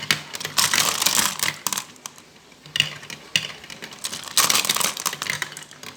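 Plastic marbles clattering and rattling down a toy marble run track in quick runs of clicks, in three or four bursts.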